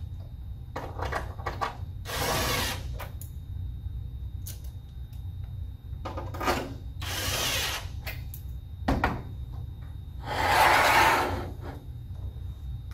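Cordless impact driver driving sheet-metal screws into a fan coil's metal air splitter, in three runs of about a second each, with light clicks and handling between them.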